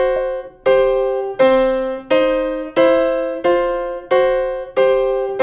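Piano playing a blues-scale riff in double stops, a C held on top of each lower scale note, struck evenly about one and a half times a second and repeated as a practice loop.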